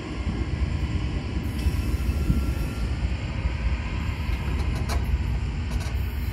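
A steady low rumble at a railroad grade crossing as the crossing gate arms rise, with a few light clicks near the end.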